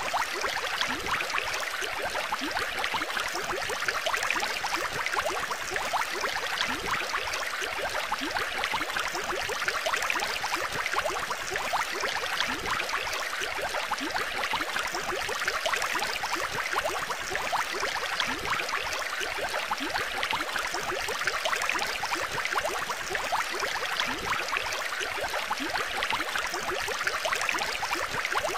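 Steady bubbling and trickling of aquarium water, a dense even patter of small splashes with no change throughout.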